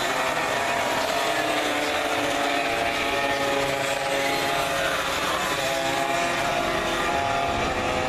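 Engines of several classic racing motorcycles running hard through a bend, their engine notes overlapping in a steady drone.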